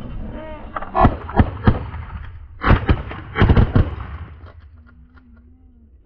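A rapid volley of a dozen or so shotgun blasts from several shooters firing together, in two quick clusters over about three seconds, starting about a second in, after brief goose honking.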